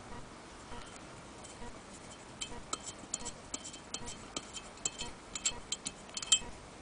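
Faint, irregular small metallic clicks and ticks as a hand works the metal crank pin on the cast-iron handwheel of a Willcox & Gibbs sewing machine. The clicks come more often from about two and a half seconds in.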